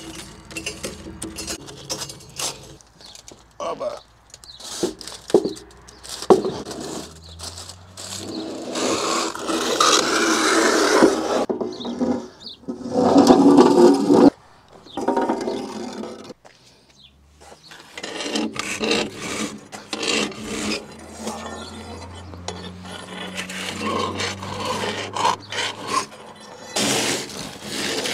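Metal scraping and rubbing on the brick hearth of a wood-fired oven as a metal tool and the oven's iron door are worked in its mouth, in irregular strokes with short knocks and clicks. Two longer, louder scrapes come about ten seconds in and again around thirteen seconds, the second cutting off suddenly.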